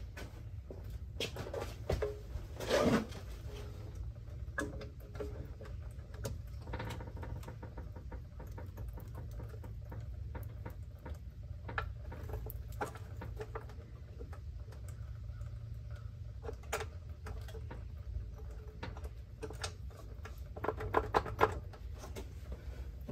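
Floor jack being lowered under a car's front subframe: scattered faint clicks and creaks over a steady low hum, with a louder sound about three seconds in and a quick run of knocks near the end.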